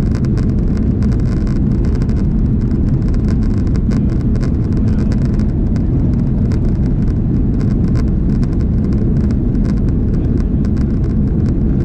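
Airliner cabin noise from an Airbus A330-300 rolling along the runway: a steady, loud low rumble of the jet engines and wheels, with a constant light rattle over it.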